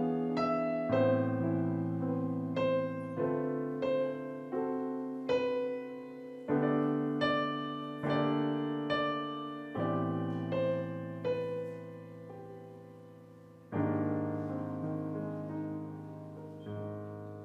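Solo piano playing a slow piece in chords, each struck chord ringing and fading before the next. About 14 seconds in, a final low chord is struck and left to ring out, with one soft chord after it near the end.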